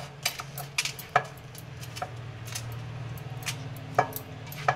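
Glass bangles on a hand mixing rice clinking against a steel bowl and against each other: about eight irregular sharp clinks over a low steady hum.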